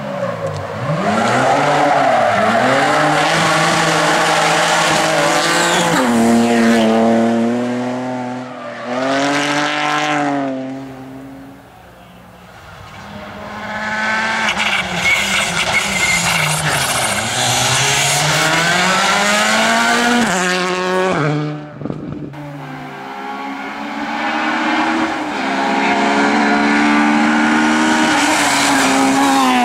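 Rally car engines at high revs, the pitch climbing and dropping repeatedly through gear changes and lifts as the cars pass. The sound eases off about twelve seconds in and breaks off briefly around twenty-two seconds before the engine noise returns.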